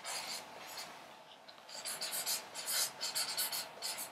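Marker pen writing on flip-chart paper: short scratchy strokes as the letters are drawn, sparse and faint for the first second or so, then a quick, busier run of strokes from a little under two seconds in.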